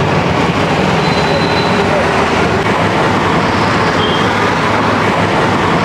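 Steady road traffic noise, an even, unbroken din with no single vehicle standing out.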